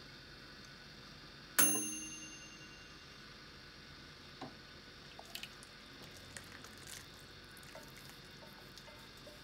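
One sharp metallic clink from the stainless-steel saucepan, ringing on for about a second as the chopsticks and pan are handled. After it come faint small taps and the soft slop of udon noodles and curry broth being tipped from the pan into a bowl.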